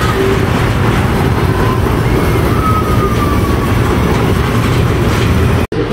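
Small steel roller coaster train rumbling steadily along its track, with a faint high squeal sliding down in pitch a little after two seconds. The sound breaks off suddenly near the end.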